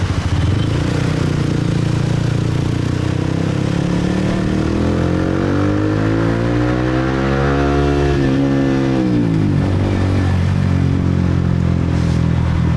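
Motorbike engines running in traffic, with road noise. Partway through, one engine's pitch climbs steadily for about four seconds, then drops away quickly.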